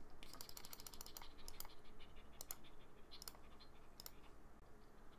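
Faint typing on a computer keyboard: a quick run of keystrokes, then a few scattered single clicks.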